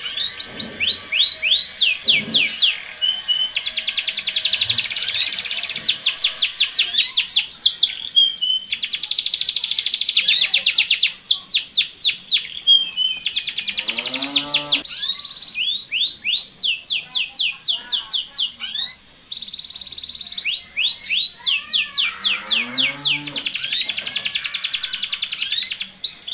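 Domestic canaries in breeding condition: the male sings fast rolling trills and quick sweeping notes in repeated bursts, mixed with the female's soliciting calls to the male. It is a mating song. Twice, a lower rising call sounds beneath the song.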